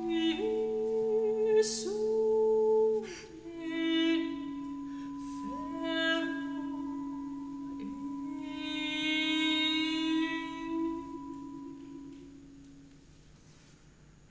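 Contemporary art music: a soprano holds long notes with vibrato over steady sustained tones. It dies away to a faint held tone near the end.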